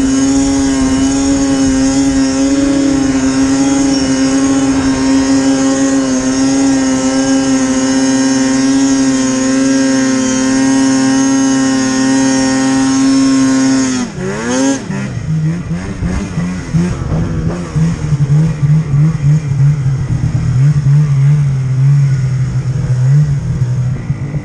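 Snowmobile's two-stroke engine held at high revs on a steady pitch, then dropping sharply about 14 seconds in to a lower, uneven note that rises and falls with the throttle.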